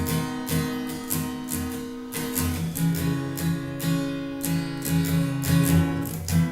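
Instrumental break in a song with no singing: a guitar strummed in a steady rhythm of about three to four strokes a second over sustained chords.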